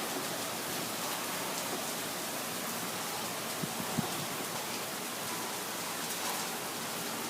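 Heavy rain coming down hard, a steady even hiss, with a couple of brief taps about four seconds in.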